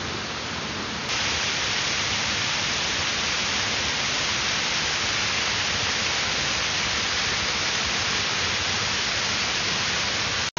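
Waterfall rushing steadily over rock. The sound gets louder about a second in and cuts out briefly near the end.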